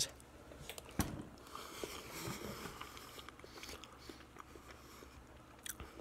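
A person chewing a mouthful of soft poached egg: faint, wet mouth sounds with small clicks, and one sharper click about a second in.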